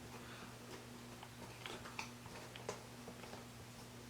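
Faint scattered clicks and taps of parts being handled, over a steady low hum.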